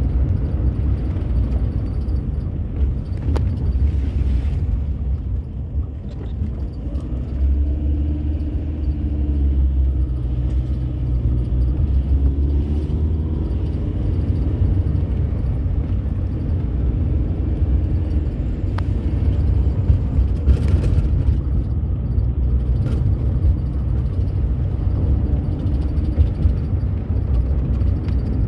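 Car being driven: a steady low rumble of engine and tyres on the road. About halfway through, a faint engine note rises and falls.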